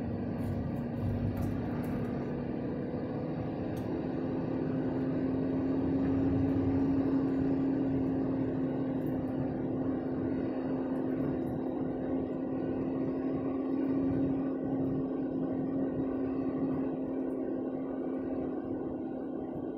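Delivery truck cruising at highway speed, heard inside the cab: a steady engine drone over tyre and road rumble. The drone swells slightly about a third of the way in and again later, without stopping.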